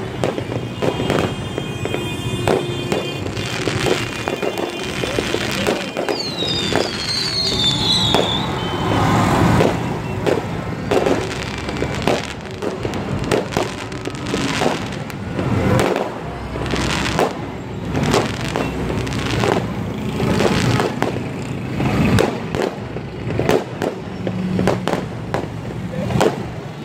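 Aerial fireworks bursting overhead in a steady run of bangs and crackles, with a brief high whistle about seven seconds in.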